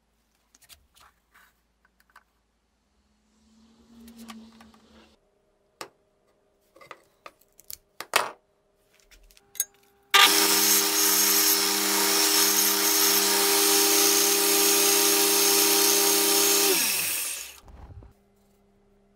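Belt grinder switched on, running with a loud steady rush of belt noise over a motor hum for about seven seconds, then switched off and spinning down, its hum falling in pitch as it stops. Before it starts, a few light clicks and taps of small objects being handled.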